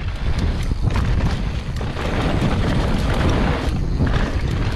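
Mountain bike riding over a rocky desert dirt trail: tyres crunching on gravel and loose stones, the bike rattling with small clicks, and wind buffeting the microphone with a steady low rumble.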